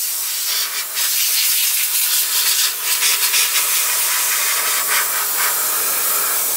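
Compressed-air blow gun hissing as an air hose blows brake dust out of an air disc brake caliper. The blast is strong and steady, with brief dips as the nozzle moves.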